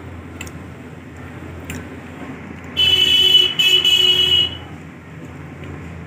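A loud, high-pitched horn tone sounds in two blasts with a short break, starting nearly three seconds in and lasting about a second and a half. Before it, a few faint metal clicks of a wrench tightening bolts sit over a steady low hum.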